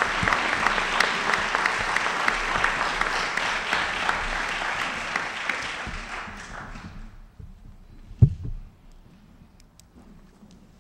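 Audience applause, many hands clapping together, fading out about seven seconds in. Just after eight seconds there is a single short, loud thump.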